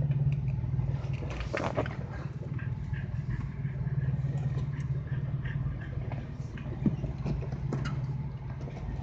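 Jeep engine running steadily at low speed while crawling over a rocky trail, with scattered clicks and knocks from the rough ground and a short burst of noise under two seconds in.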